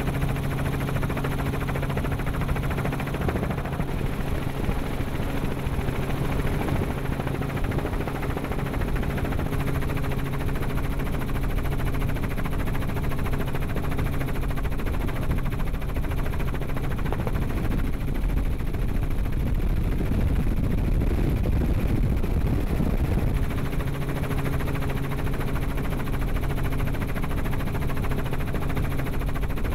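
Helicopter in flight heard from inside the cabin: a steady engine and rotor drone with rapid rotor chop. Past the middle the steady hum dips for a few seconds under a louder low rumble, then returns.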